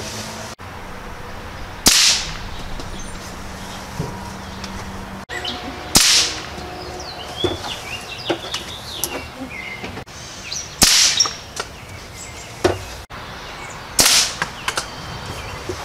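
.177 ATI AT-97 Elite break-barrel air rifle firing four shots a few seconds apart, each a sharp crack with a short tail. Between shots, birds chirp faintly.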